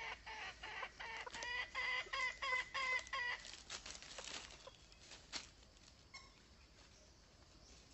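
Red junglefowl clucking: a quick run of repeated calls, about two or three a second, that stops about three seconds in. Then dry leaf litter rustles and there are a few sharp clicks.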